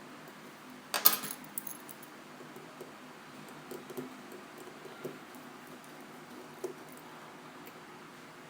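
Small tools and metal parts clinking on the work surface while an iPhone 4S is taken apart: one sharp metallic clink about a second in, then scattered faint ticks and taps.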